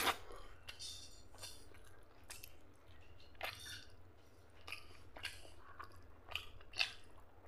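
Close-miked wet chewing and lip smacks of a person eating greasy mutton fat curry and rice by hand, heard as short irregular squelches every half second or so.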